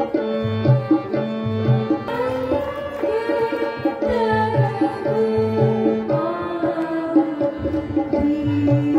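Indian stage music: a melodic line that glides between held notes, over repeated low hand-drum strokes in a steady rhythm.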